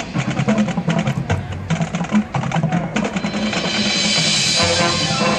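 High school marching band playing its field show. For the first three seconds there are rapid drum and mallet-percussion hits. Then the band swells into a held chord that grows louder.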